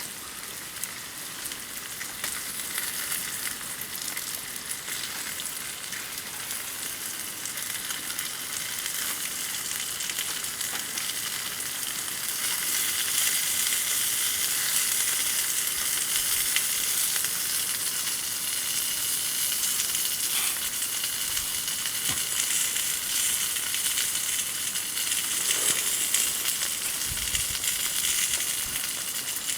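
Food frying in a pan: a steady dense sizzle that grows louder about twelve seconds in, with a few faint pops.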